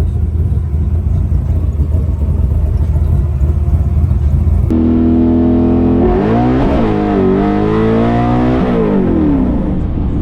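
Drag car's engine running with a heavy, steady low rumble, then from about five seconds in its revs rise and fall a few times before settling back.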